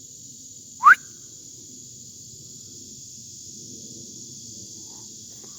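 A steady chorus of insects trilling high, with one short, loud rising whistle about a second in from a northern cardinal.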